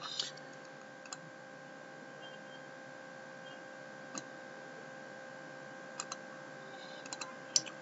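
A handful of faint, short computer mouse clicks, about a second in, around four and six seconds in, and several near the end, over a steady faint electrical hum.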